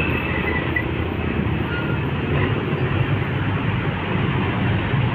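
Loaded tandem-axle cargo truck driving past close by, its diesel engine and tyres giving a steady, even rumble over the road traffic.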